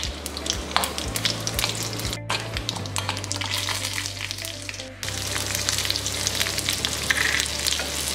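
Hot oil sizzling and crackling with fine pops as dried red chillies, urad dal and mustard seeds fry in a kadai for a South Indian tempering.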